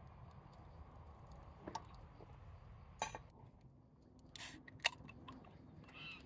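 A few sharp clinks and clicks of eating utensils against tableware, with a short scrape just before the loudest click near the end, over a low steady background.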